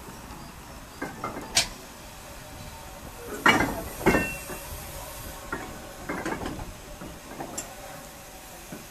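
Small industrial steam tank engine moving slowly with goods wagons: irregular metallic clanks and knocks, the two loudest about three and a half and four seconds in, over a soft steady hiss of steam.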